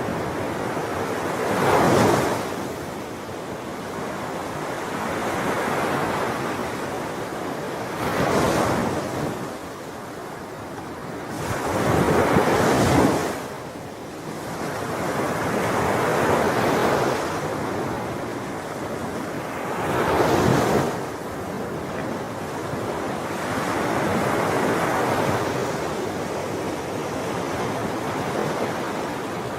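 Sea waves washing onto a shore, the surf rising and falling, with four louder breakers about six to eight seconds apart.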